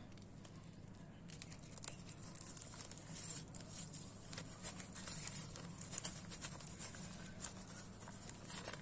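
Faint rustling and scratching made of many small irregular clicks, over a steady low hum.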